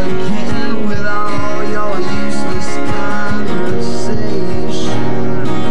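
Two acoustic guitars playing together, an instrumental passage of picked and strummed chords.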